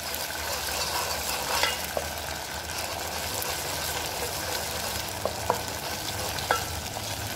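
Thick tomato-paste sauce sizzling in a frying pan on the heat while it is stirred with a spoon, with a few light clicks of the spoon against the pan.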